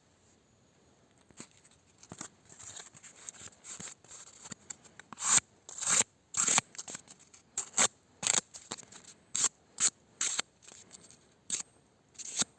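Mora knife blade making a series of short, sharp cutting strokes at an irregular pace, typical of slicing tests.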